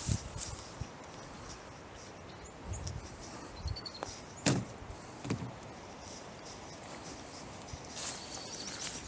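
Quiet outdoor ambience with soft footsteps and rustling on grass and dry leaves, and a sharp knock about halfway through.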